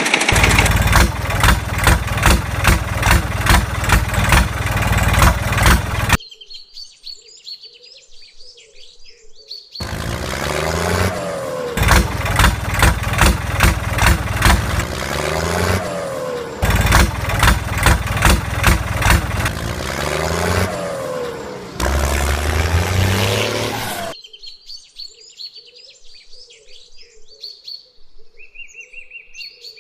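Tractor engine sound chugging with a regular beat of about two pulses a second. It comes in long stretches that cut in and out abruptly. In the quieter gaps, birds chirp.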